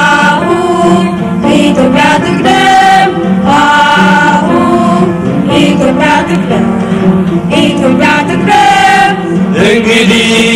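Music with voices singing together in long held notes over a steady accompaniment.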